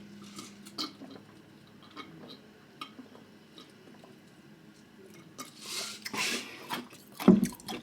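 Eating sounds: quiet chewing and scattered light clicks of utensils against a dish, then a louder wet mouth sound about five and a half seconds in and a sharp knock near the end.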